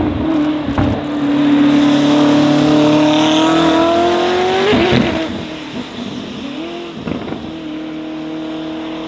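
Koenigsegg Jesko Absolut's twin-turbo 5.0 L V8 accelerating hard, its pitch climbing steadily for about three and a half seconds. About five seconds in it breaks off sharply at a gearshift, then carries on quieter and steadier as the car pulls away.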